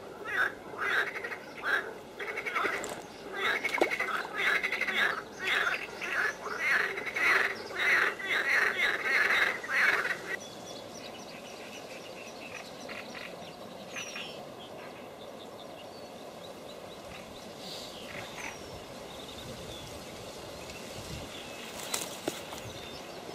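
Rapid repeated animal calls from the reeds, about two a second, cutting off abruptly about ten seconds in. After that a steady outdoor hiss with a few short bird chirps and one sharp click near the end.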